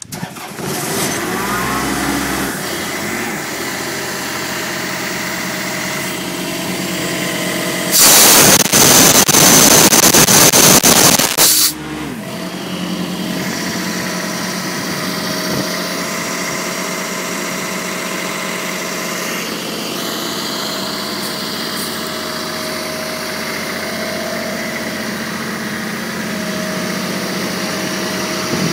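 Kaeser M26 mobile compressor's three-cylinder Kubota diesel starting and then running steadily. About eight seconds in, a much louder rush of noise lasts nearly four seconds before the engine sound settles back.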